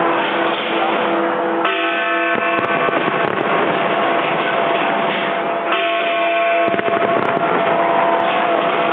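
Fireworks display going off in a dense, continuous crackle with occasional sharp bangs. Over it, sustained ringing tones start afresh about every four seconds, like a large bell striking or chords from the display's soundtrack.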